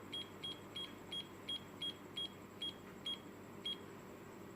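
Cube digital alarm clock giving a short high beep with each button press while its year setting is stepped up, about three beeps a second, stopping shortly before the end.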